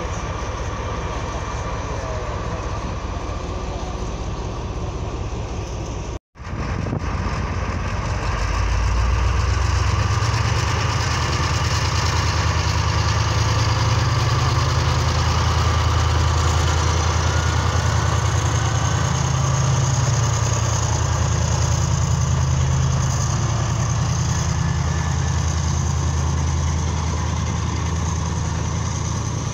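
Class 35 Hymek diesel-hydraulic locomotive's Maybach V16 diesel engine running steadily. After a brief dropout about six seconds in, the engine sound grows louder and stays loud as the locomotive opens up to haul its train away.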